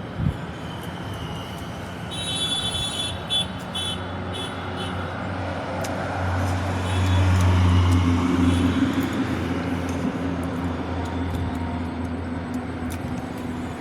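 A motor vehicle's engine running as it passes by, its low hum growing to its loudest about halfway through and then fading. A short run of broken high tones sounds early on.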